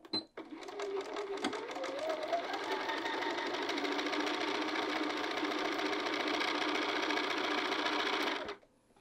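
Bernina sewing machine stitching a seam through thick canvas. A brief high beep comes at the start, then the motor speeds up over the first few seconds and runs steadily before stopping near the end.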